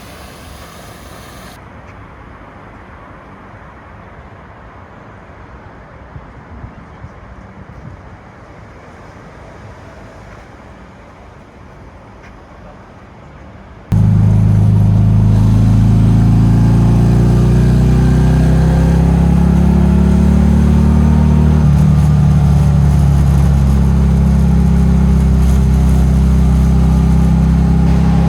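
Steady road and engine rumble of a car being driven. About halfway through, loud bass-heavy music cuts in suddenly and covers it.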